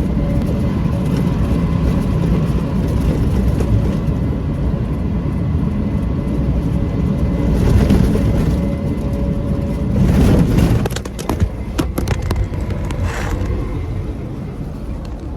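Concrete mixer truck's diesel engine running, a steady low noise heard from the cab. A few sharp clicks come about eleven to twelve seconds in, as the engine noise drops a little.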